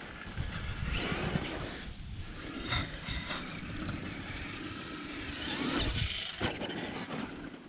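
Electric RC truck running fast along a gravel path, its motor whine rising as it speeds toward a metal mesh jump ramp, then a thump as it lands about six and a half seconds in.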